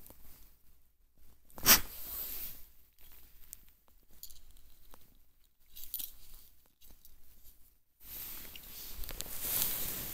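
Handling noise: a sharp knock about two seconds in, a few light clicks, then steady rustling and scuffing over the last couple of seconds.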